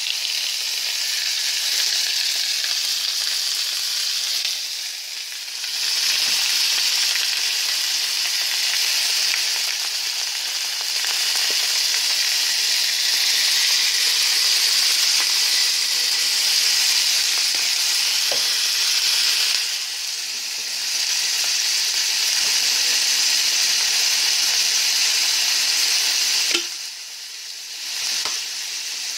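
Pork ribs sizzling as they fry in oil in a nonstick pan: a steady hiss that dips briefly a few times.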